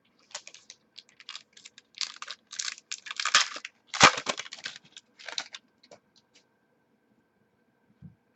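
Trading cards and their plastic packaging being handled: a few seconds of irregular crinkling, rustling and clicking, with a sharp knock about four seconds in.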